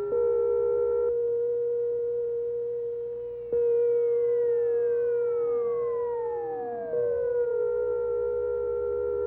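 Electronic soundtrack of steady, pure-sounding drone tones. About three and a half seconds in, and again near seven seconds, a sudden attack sets off several tones that slide down in pitch, some dropping steeply, before the sound settles back to a steady drone.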